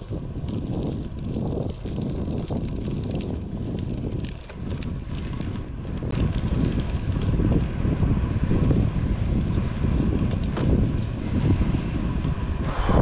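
Wind buffeting the microphone of a chest-mounted GoPro on a moving road bike: a steady low rumble that gets louder about halfway through.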